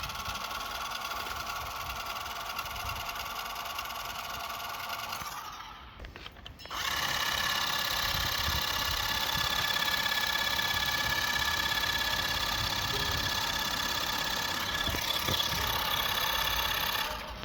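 Washing-machine RC car's electric motor running with a steady whine. It drops out for about a second near six seconds in, then runs again louder until near the end, over a low rumble of the car on the trampoline.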